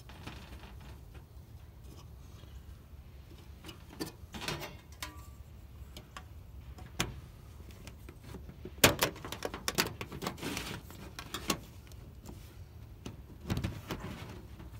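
Thin sheet-metal lid of a cut-down popcorn tin being pressed on by hand over packed denim squares. The cloth rustles at first, then the lid gives a run of sharp metallic clicks and snaps as it seats around the rim, the loudest about nine seconds in.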